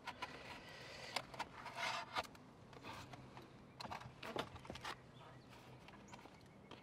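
Utility knife slicing through a roll of Vycor Pro self-adhering flashing tape, with short scraping, rustling strokes and a few light clicks as the tape and its paper backing are handled.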